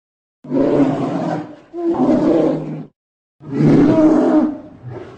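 Polar bear vocalizing: three long, rough calls of about a second each, the last one trailing off near the end.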